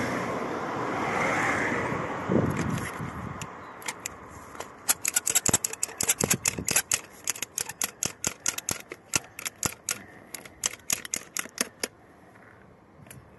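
Wind and street noise for the first few seconds, then a rapid run of sharp clicks, about five a second, lasting some seven seconds.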